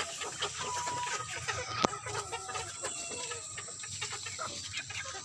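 Chickens clucking and calling, with one short clear call about a second in. A single sharp knock a little under two seconds in.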